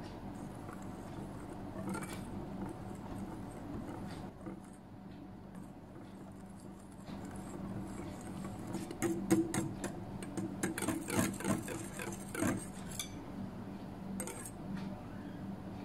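Stainless-steel wire whisk beating a liquid mixture in a glass bowl, sped up about halfway through so that its wires click rapidly against the glass for several seconds. A steady low hum runs underneath.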